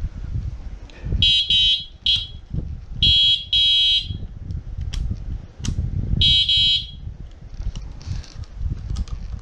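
Electronic horn of an AKEZ LX10A electric scooter beeping in several short bursts: a shrill, even buzzing tone sounded in three groups, with handling knocks and rumble underneath.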